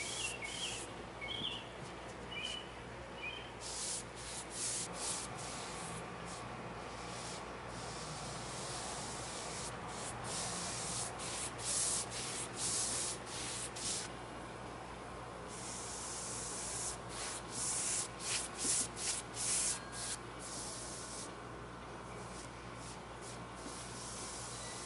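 Foam brush swishing back and forth over a cedar board, stroke after stroke, as it spreads a wet finish along the grain.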